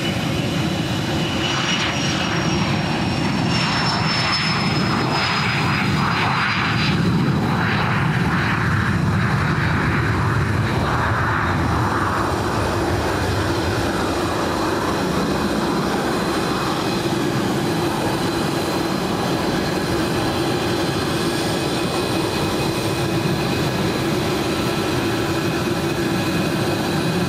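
An Israel Aircraft Industries Astra SPX business jet's twin Honeywell TFE731 turbofans running at takeoff power through the takeoff roll, liftoff and climb-out: a steady, loud jet roar. A high whine falls in pitch over the first several seconds, and a steady high whine continues after that.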